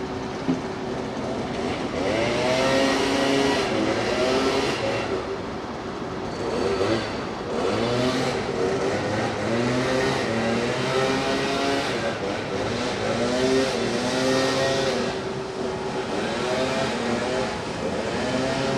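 An engine revving up and down again and again, with stretches of hiss between the revs.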